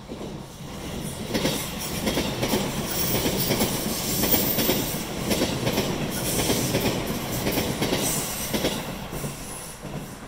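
Locomotive-hauled passenger train of E26 series Cassiopeia sleeper cars passing close by: wheels rumbling and clattering along the rails. The sound swells within the first two seconds, stays loud, and fades near the end.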